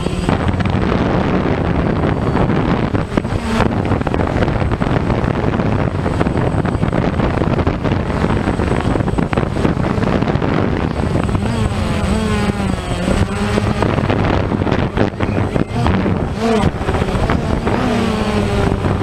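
Small quadcopter camera drone's propellers buzzing steadily in flight, with wind on the microphone.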